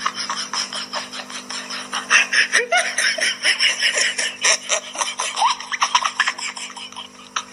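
A person laughing, rapid and breathy, over a steady low hum; the laughter fades near the end.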